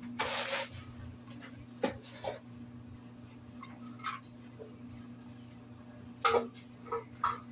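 Flat-head screwdriver working at a rusted screw on a metal electrical box: a short rasping scrape, then scattered sharp metallic clicks and clinks, the loudest about six seconds in. The screw is too rusted to come out. A steady low hum runs underneath.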